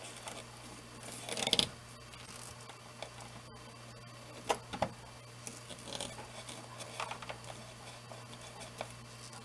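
Insulated hookup wires being handled and rustled against plywood benchwork, with scattered light clicks, a brief louder scrape about a second and a half in and two sharp clicks near the middle. A faint steady low hum runs underneath.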